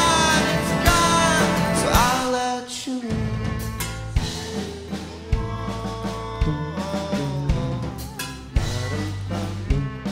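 Live band playing a song with singing: loud held vocal notes over the band for about the first two seconds, then a quieter passage of held notes punctuated by drum hits.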